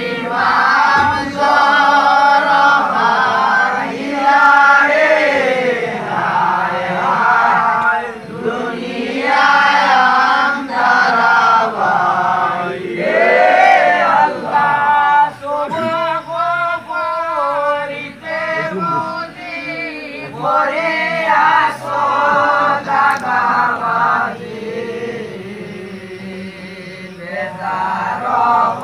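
A large group of voices chanting and singing together in unison, phrase after phrase, with a quieter stretch near the end.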